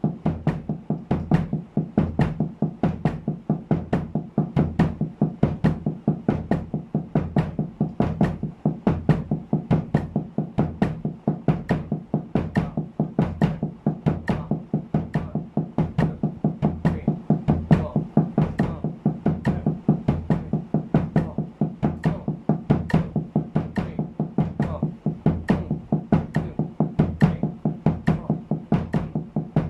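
Drumsticks playing an even sixteenth-note pattern of double strokes on a towel-muffled snare drum at 70 bpm, with kick drum strokes on the last two sixteenths of each beat, about five strokes a second.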